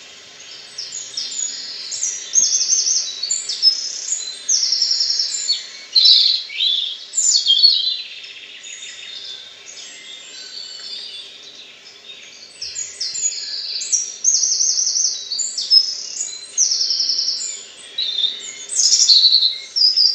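A small red-breasted songbird singing: bursts of high, quick, varied phrases with rapid trills, in two long bouts with a quieter stretch of a few seconds between them.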